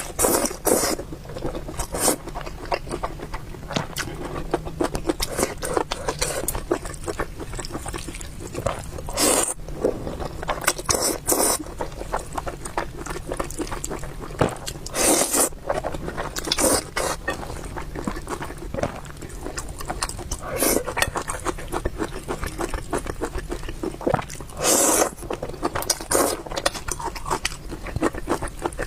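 Close-miked eating of spicy beef noodles: a steady run of small wet chewing and mouth clicks, broken by louder slurps of noodles about half a second long, several times.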